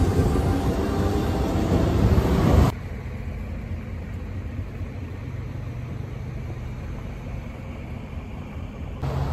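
Hiroshima Electric Railway streetcar passing on its tracks: a loud low rumble with steady tones, cut off abruptly about three seconds in. After the cut comes quieter street traffic noise with a faint steady hum, which grows louder again near the end.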